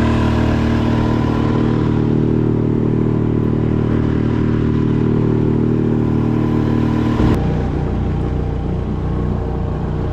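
Small outboard motor running steadily at speed, pushing the boat through the water. About seven seconds in, the sound changes abruptly to a lower, rougher running.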